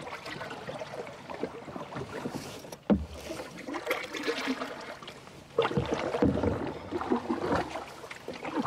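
Wooden canoe paddle sweeping through calm water: soft swishes and drips of the blade, with a sharp knock about three seconds in. The paddling gets louder a little past halfway.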